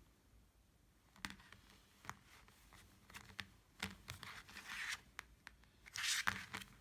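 Handling noise: a few short rustling and scraping sounds with sharp clicks. The loudest rustle comes about six seconds in.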